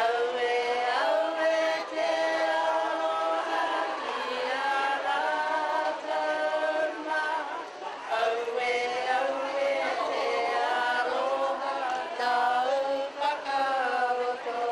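A group of women singing a slow song together in harmony, with long held notes and a brief pause about halfway through.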